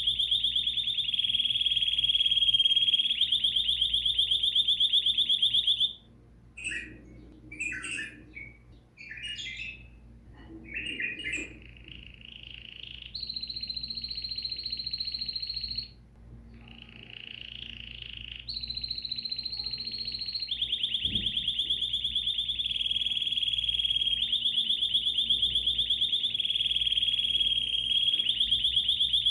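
Songbird singing: long, fast, high trills that repeat evenly. About a fifth of the way in they break off into a run of short varied chirps and whistles, then held high notes, before the fast trill returns.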